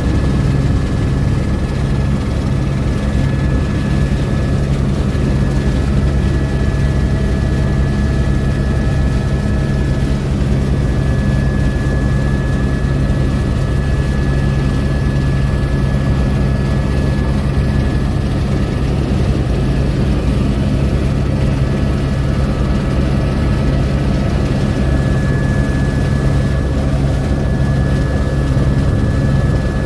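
Helicopter in flight, heard from inside the cabin: a steady engine and rotor drone with a thin, constant whine above it.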